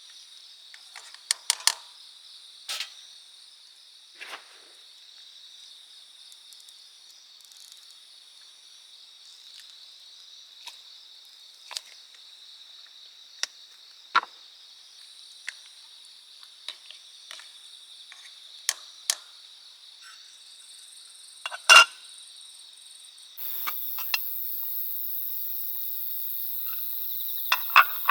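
Crickets and other autumn insects trilling steadily, with scattered sharp clicks and knocks; a second, higher-pitched steady trill joins about five seconds before the end.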